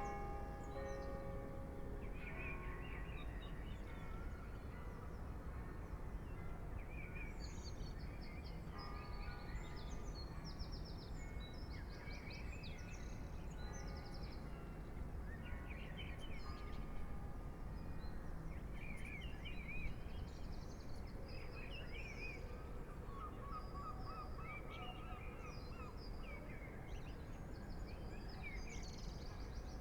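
Many small birds chirping and trilling in short phrases throughout, over a steady low rumble of light breeze. The last ringing tones of the Westerkerk church bells die away about a second in.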